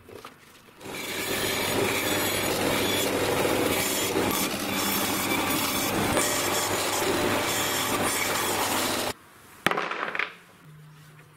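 A saw cutting through wood, a steady dense noise that runs for about eight seconds and then stops abruptly. A sharp click and a short scrape follow soon after.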